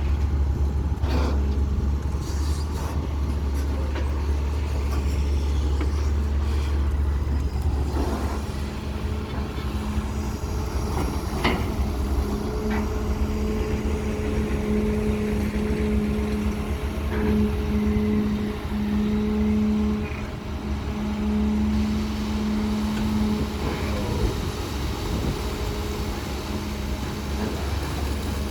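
Diesel engine of a CAT320 long-reach excavator running steadily under load. A higher steady tone builds from about a third of the way in and drops away near the end, and a few sharp clanks sound now and then.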